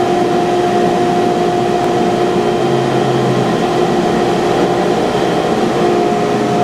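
ShopBot CNC router's spindle and dust extraction running: a steady pitched whine over a constant rushing noise.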